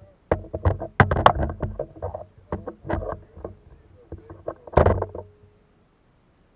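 Irregular knocking and clattering against a kayak's plastic hull, a quick run of sharp knocks for about five seconds that then stops.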